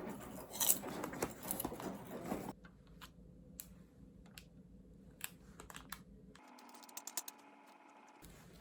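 Soft clicking and tapping, busy for the first couple of seconds, then only scattered single clicks.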